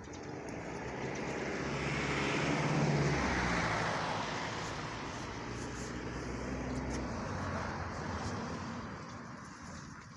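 A motor vehicle passing close by. Tyre and engine noise swells, peaks about three seconds in with the engine note dropping in pitch as it goes past, then fades. A second, quieter swell follows around seven seconds.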